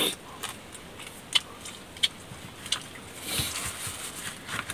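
Eating and food-handling sounds: bread being pulled apart and chewed, with a scatter of small clicks from bamboo chopsticks and a short rustle about three and a half seconds in.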